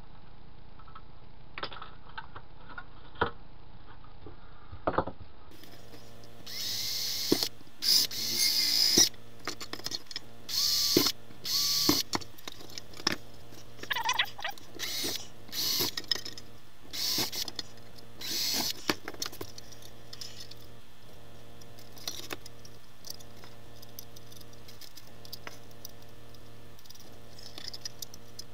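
Cordless drill/driver running in a dozen or so short bursts, some with a whine, driving small machine screws to fasten a Tortoise switch machine to its plastic bracket. A few sharp clicks of parts being handled come before it.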